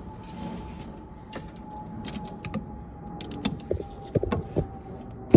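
Metal hand tools clinking and clicking in scattered light strikes: a socket and wrench being swapped and worked on the steering box's bolts.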